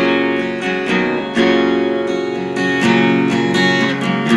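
Acoustic guitar strummed, a new chord struck about every second and a half.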